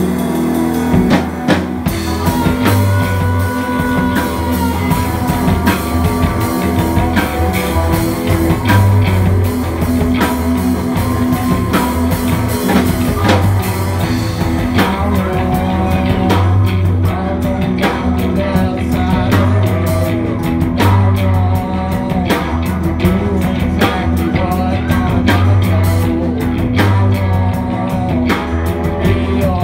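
Live rock band playing: electric bass, banjo and electric guitar over a drum kit with a steady beat.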